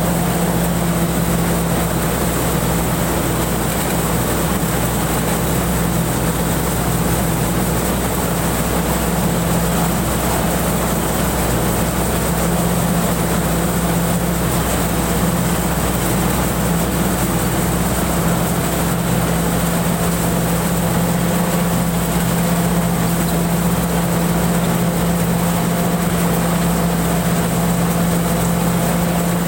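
Rice combine harvester running steadily from the driver's seat: engine and harvesting machinery giving an even drone with a strong low hum and no change in speed.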